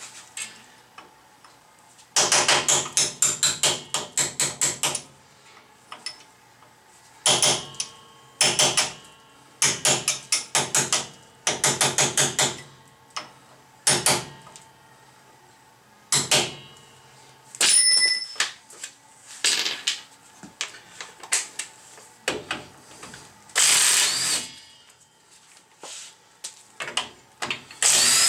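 Hammer striking a punch against the front hub and spindle of a Datsun truck's drum brake, metal on metal: quick runs of ringing blows with short pauses between them. A power tool runs in a short burst near the end.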